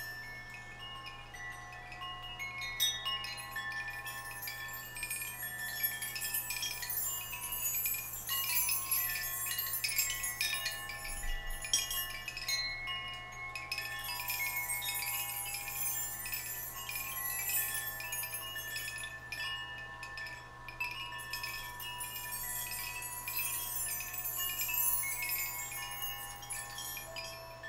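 Hanging metal chimes played by hand, jingling and ringing without a break: a dense shimmer of small strikes over several overlapping held tones.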